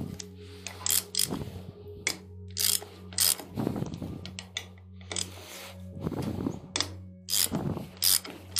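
Hand ratchet wrench clicking in short runs, with metal clinks between them, as the bolts holding an Eaton M90 supercharger's nose cone are backed out. A steady low hum runs underneath.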